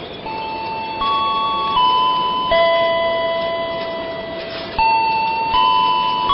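A telolet musical horn playing a tune of held notes. It steps up and down between several pitches about once a second, each note starting sharply and fading slightly.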